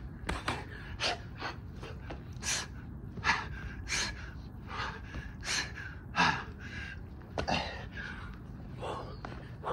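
A man breathing hard and gasping during burpees: short, sharp breaths about two a second, a few of them louder than the rest.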